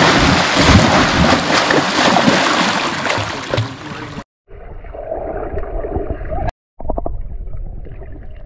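Loud splashing and rushing water close to the microphone for about four seconds, cut off abruptly; then a duller, muffled gurgling of water, broken by a short gap partway through.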